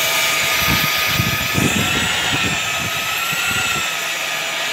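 Electric hand drill spinning a cylinder hone inside an engine block's cylinder liner: a steady, slightly wavering motor whine, with rough scraping of the hone against the bore through the middle.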